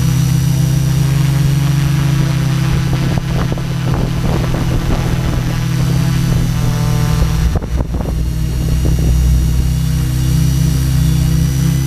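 Tarot 690S hexacopter's six brushless motors and propellers humming steadily in flight, recorded from a camera on the airframe, with a thin high whine over the hum. The hum wavers as the motors change speed, and is rougher for a few seconds in the middle with a brief dip about eight seconds in.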